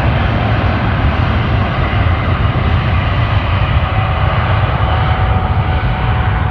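Boeing jet airliner's engines at high power during a takeoff run, a loud steady rumble with a rushing hiss and a faint steady whine.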